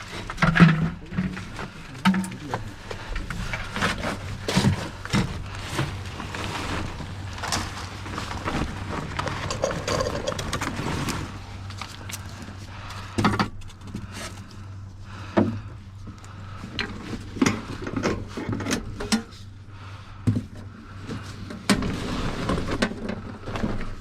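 Scattered knocks, clicks and clatter of work being done by hand, over a steady low hum.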